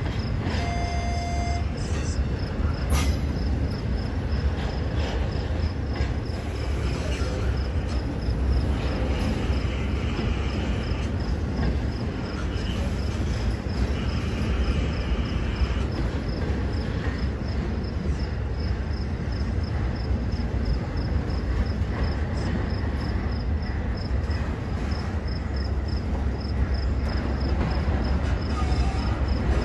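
Union Pacific intermodal freight train's double-stack well cars rolling past: a steady rumble of steel wheels on the rails, with a faint high ticking repeating at an even pace.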